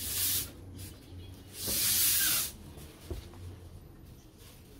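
Gas hissing from a helium tank's filling nozzle into a balloon, in two bursts: a short one, then a longer one about a second and a half in.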